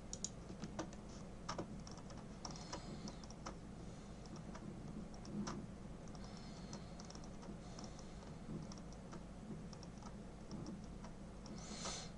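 Faint computer keyboard typing: irregular runs of key clicks.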